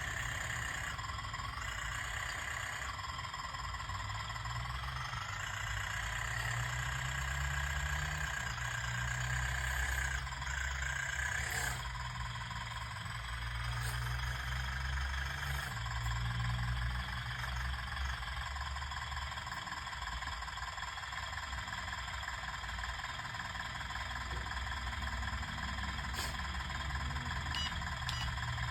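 Radio-controlled model excavator's electric motors running steadily: a high whine over a low hum, the whine shifting in pitch now and then as it works.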